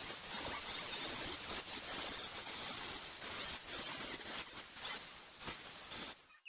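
Edge of a cut steel frame piece being ground or sanded clean, a steady rasping hiss that stops about six seconds in.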